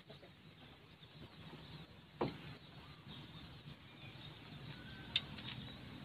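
Faint outdoor ambience with a few faint bird calls, and one light click about two seconds in.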